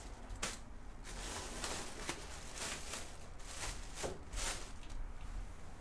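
Hands handling a Lenovo IdeaPad Y520 laptop's plastic bottom case: a string of short scrapes and taps, roughly eight of them, as the case is rubbed and pressed.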